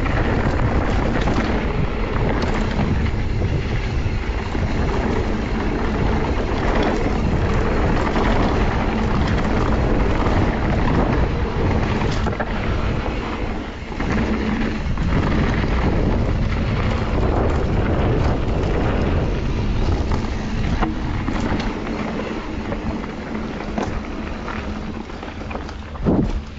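Mountain bike riding down a dirt trail, heard from a camera on the rider: a steady rush of wind and tyre noise, with occasional sharp knocks and rattles from the bike over rough ground.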